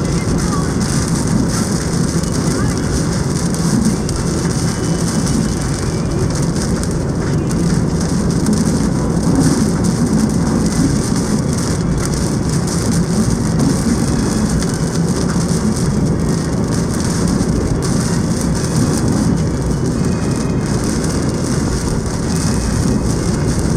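Typhoon rain and wind, a steady loud rushing with a low rumble beneath the hiss of the rain.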